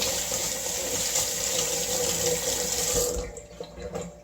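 Water tap running into a sink while hands are washed under it, shut off about three seconds in.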